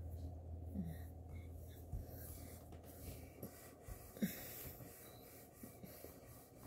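Faint handling noise: light rubbing with a few small clicks and taps, over a low hum that fades out about two seconds in.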